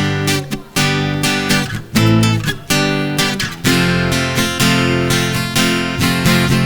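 Instrumental intro of a live sertanejo song: acoustic guitar strummed in sharp, clipped chords over a bass line.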